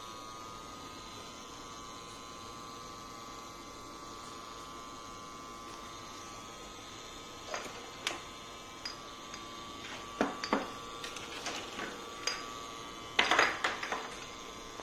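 Steady electrical hum with a few close, high, steady tones from a running Maiden VT230 AC drive (variable-frequency drive) under test. Scattered sharp clicks and knocks come in over the second half, bunched near the end.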